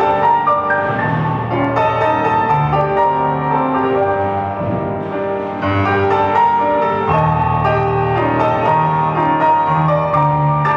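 Solo piano music playing: recorded accompaniment for a ballet barre exercise, with notes struck over a low bass line.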